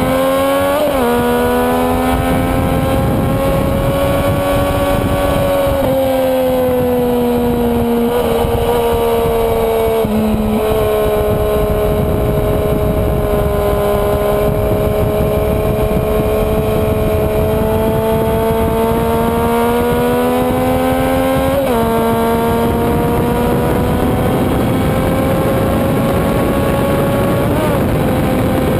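Onboard sound of a sport motorcycle's engine pulling hard around a racetrack. The engine note rises and falls with several gear changes and sharp pitch steps, under a heavy rush of wind noise at speed.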